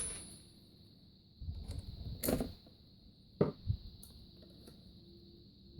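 Handling noises from work on a coffee maker's thermostat wiring: a brief rustling rumble and a couple of sharp clicks, as a wire is pulled off the thermostat. A faint steady high whine runs underneath.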